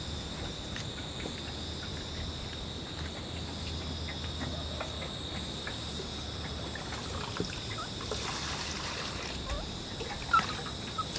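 Crickets chirring in a steady, high-pitched trill, with a hiss of trickling water growing in near the end.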